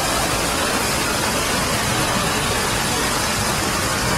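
Steady rushing hiss of water running down a street fountain.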